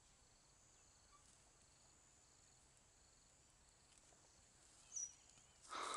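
Near silence: faint insect chirping, a short high chirp about five seconds in, and a brief rustle at the very end.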